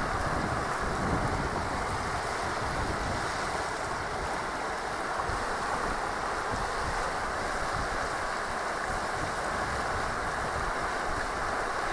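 A swollen river in flood, fast muddy water rushing in a steady, even wash of noise, with wind buffeting the microphone.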